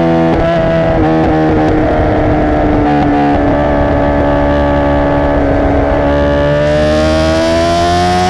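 2017 Honda CBR1000RR Fireblade's engine running through a Racefit exhaust, loud and steady. Its pitch sinks slowly through the middle and rises again near the end.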